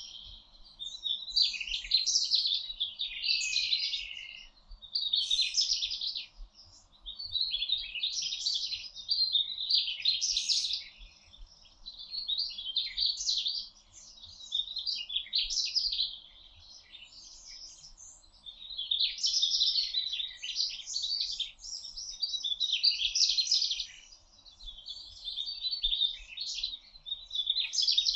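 A songbird singing, in rapid high phrases of one to two seconds each, repeated with short pauses.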